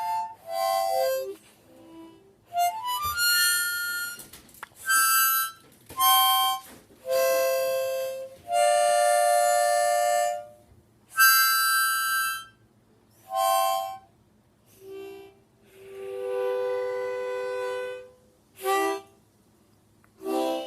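A harmonica played unevenly by a novice: about a dozen short held notes and chords of two or three reeds, each breathed separately with brief pauses between them, and a rising bend about three seconds in.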